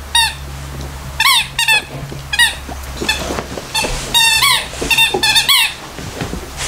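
A labradoodle chewing a squeaky dog toy, setting off short high squeaks one or two at a time, with a quick run of them about four seconds in.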